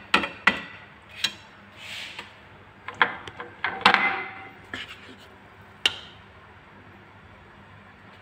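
Kitchen utensils knocking and clicking against cookware, several sharp knocks close together at first, with two short scraping rustles about two and four seconds in. The knocking stops about six seconds in.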